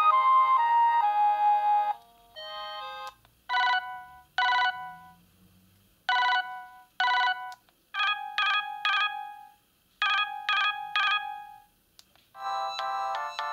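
Siemens M55 mobile phone playing its ringtones one after another. A melody ends, then comes a ring-style tone of short bursts, first in pairs and then in threes, and a new many-note melody starts near the end.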